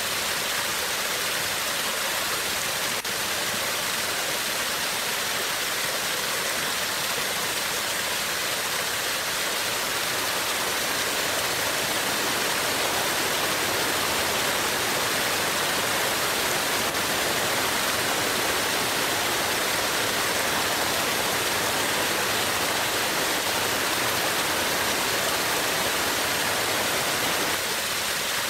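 Recorded waterfall: a steady rush of falling water. A second waterfall recording joins at lower volume about ten seconds in, filling out the lower range, and drops out shortly before the end.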